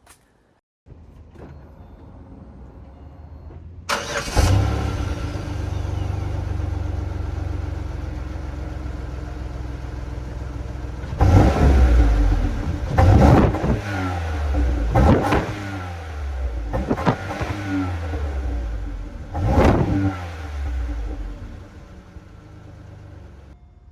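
Pontiac G6 GT's 3.5-litre V6 starting through a loud custom-welded exhaust. It catches about four seconds in, idles, then is revved five times, each blip falling back to idle.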